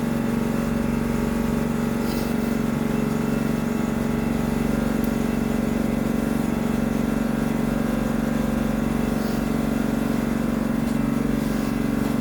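Air compressor and shop fan running together: a steady, even hum with a strong low tone.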